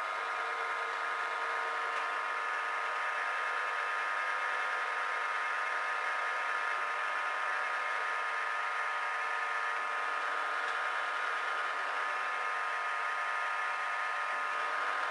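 Warco Major GH geared-head mill-drill running, its spindle and gear train giving a steady, even whine.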